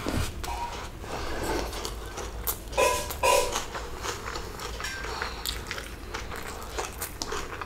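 A person eating biryani by hand: wet chewing of a mouthful and the soft crackle of fingers working the rice, with two short louder sounds about three seconds in.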